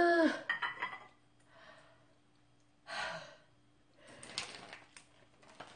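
A woman's satisfied sigh after drinking ramen broth, a pitched 'ahh' that fades out just after the start, followed by a few soft clicks and a short breathy exhale about three seconds in.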